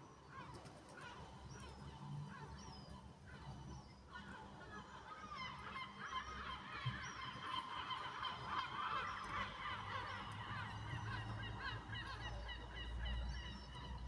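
A flock of gulls calling, many short rising-and-falling cries overlapping each other and growing busier about five seconds in.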